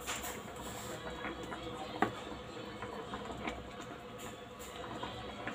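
A metal spoon stirring soup in an electric cooking pot, with small scrapes and clinks against the pot. One sharper clink comes about two seconds in.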